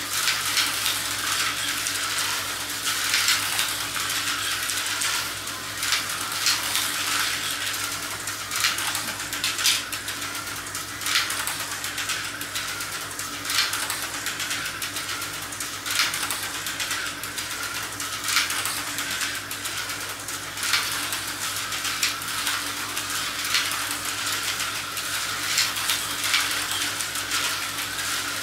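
Tyco HO slot cars running laps on a plastic track, their small motors and rail pickups making a steady high hiss, with a sharp click about every two and a half seconds.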